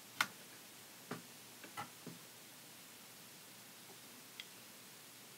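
A few short, sharp clicks at irregular intervals over a quiet room: the loudest right at the start, three or four more within the next two seconds, and a faint one later.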